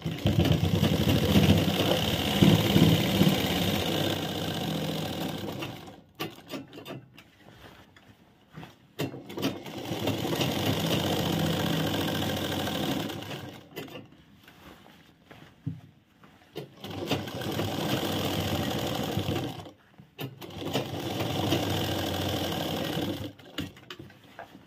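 Sewing machine stitching in four runs of a few seconds each, stopping between runs while the fabric is repositioned. It is sewing a second line of stitching over the seat seam of trousers.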